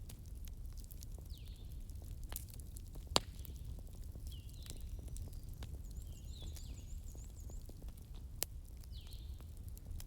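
Wood fire crackling, with scattered small pops over a low rumble and two sharper, louder pops about three and eight and a half seconds in. A short high call repeats every couple of seconds in the background.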